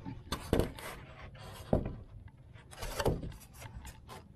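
Plywood and rigid foam insulation board being handled and shifted against each other: three scraping, rubbing bursts, followed by a few light knocks near the end.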